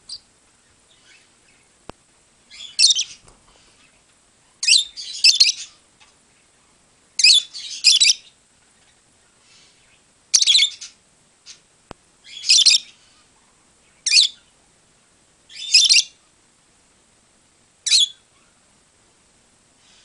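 Peach-faced lovebird giving its flock call: loud, shrill screeches repeated about every two seconds, several as quick doubles.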